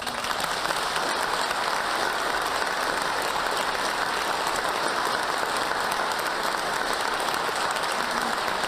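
A large studio audience applauding steadily.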